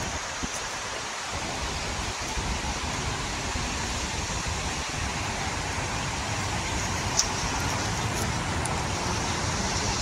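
Steady outdoor background noise: an even rushing hiss over an unsteady low rumble, with one faint short click about seven seconds in.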